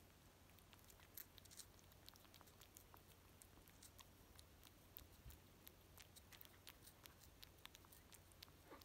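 Faint, irregular wet clicks of a kitten's tongue lapping a lickable paste treat from a squeeze sachet, several clicks a second.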